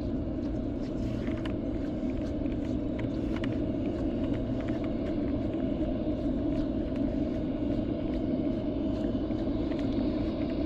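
A steady low rumble with faint ticks above it, unchanging throughout.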